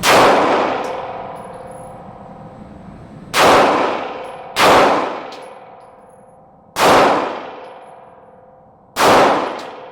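Five gunshots fired one at a time at uneven intervals, each followed by a long ringing fade.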